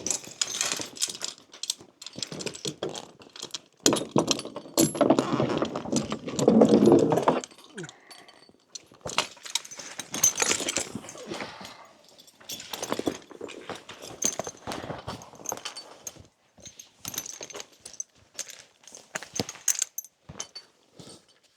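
Metal harness fittings and buckles clinking and jingling as reins and tack are handled on draught horses, a run of irregular short clicks, with a louder stretch of noise from about four to seven seconds in.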